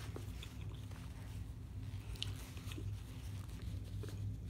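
Close-miked chewing of an air-fried shrimp po' boy sandwich: soft, wet mouth sounds with a few faint clicks and no hard crunch, the shrimp's breading no longer crisp. A steady low hum runs underneath.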